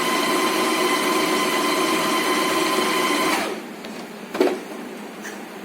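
Usha Janome Stitch Magic electric sewing machine running steadily with a whine while stitching a pattern. About three and a half seconds in, the whine drops in pitch as the machine slows and stops. A single click follows about a second later.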